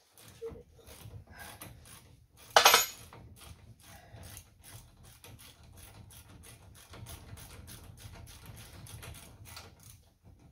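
Ratchet wrench clicking in quick repeated strokes as a 21 mm front brake caliper bracket bolt is worked loose with a socket. There is one loud sharp bang about two and a half seconds in.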